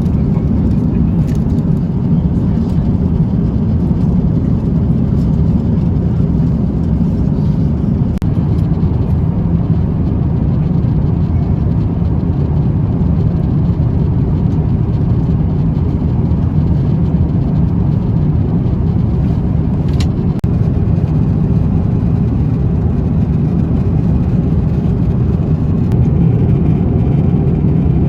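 Steady low rumble of an Airbus A350-900 cabin in cruise, engine and airflow noise heard from inside the cabin, with a couple of faint clicks.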